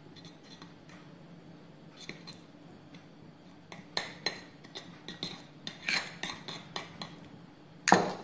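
Metal teaspoon stirring and scraping in a ceramic saucer, clinking against the china, as yellow colouring is mixed into decorating gel. The clinks grow sharper and more frequent in the second half. Near the end there is one loud clatter of spoon and saucer as they are set down.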